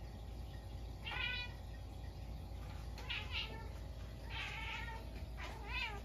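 A house cat giving four short, high-pitched meows, each about half a second long. The last one rises and then falls in pitch. The cat is calling up at a stink bug that has got into the room.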